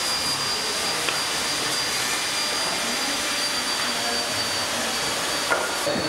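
Woodworking-workshop machinery running steadily, an even noise with a faint high whine, broken by two light knocks, about a second in and near the end.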